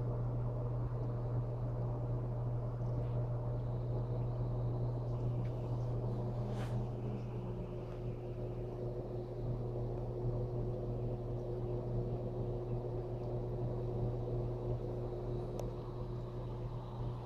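Steady low electric hum of a small aquarium's water pump running, with fainter steady tones above it and a faint tick about six and a half seconds in.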